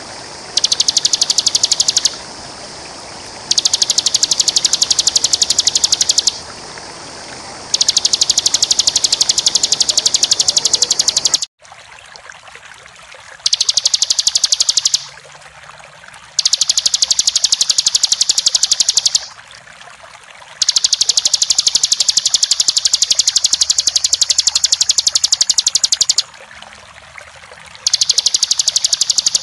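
Bar-winged prinia (ciblek) singing a rapid, high-pitched trill in seven separate bursts of one to five seconds each, the long unbroken 'ngebren' trilling that bird-keepers prize. Behind it runs a steady rush of water, which cuts out abruptly about a third of the way in and comes back quieter.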